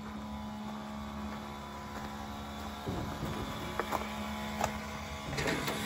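Steady low machine hum holding one pitch, with a few faint clicks in the second half.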